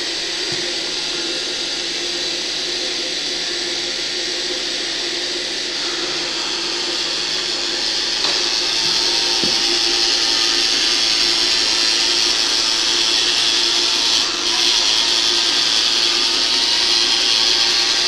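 Small electric motors driving plastic gear trains, whirring steadily; the whir gets louder about eight seconds in and dips briefly near the end.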